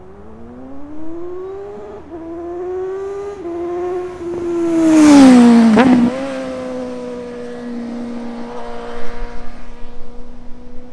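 A 2020 Suzuki GSX-S750's inline-four with a Yoshimura AT2 slip-on exhaust accelerates hard through two gear changes. It passes close by about 5 to 6 seconds in, loudest there, with a sharp drop in pitch. It then holds a steady note as it pulls away.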